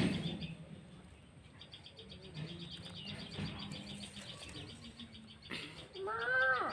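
Small birds chirping in quick succession in the background. There is a bump at the start, and near the end a short call rises and then falls in pitch.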